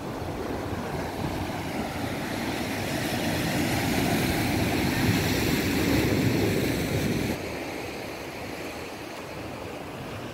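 Wind buffeting the microphone over waves washing on a rocky sea shore, a steady rushing noise that swells and then drops abruptly about seven seconds in.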